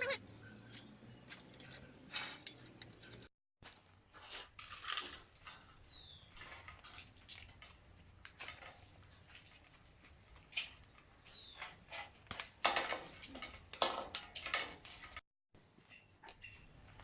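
Metal parts of a rusty wire dish rack being handled, clinking, clicking and scraping against each other and the work surface, with two short high squeaks.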